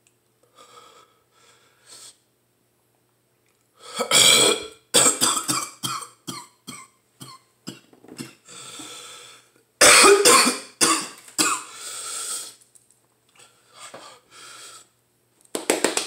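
A man coughing hard in fits: a loud burst about four seconds in followed by rapid short coughs, another loud fit about ten seconds in, and a last burst near the end. It is his throat reacting to the burn of the Carolina Reaper chip he has just eaten.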